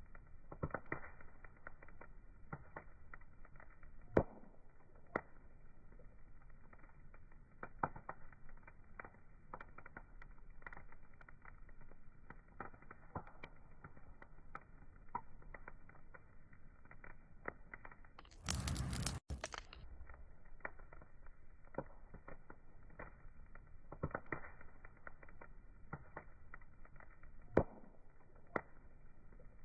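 Wood fire crackling, with irregular sharp pops and snaps over a low hiss. About two-thirds of the way through, a burst of loud hiss lasts about a second and cuts off suddenly.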